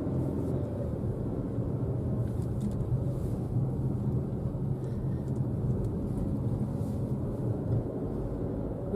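Car driving along at speed, heard from inside the cabin: a steady engine hum under even road and tyre noise.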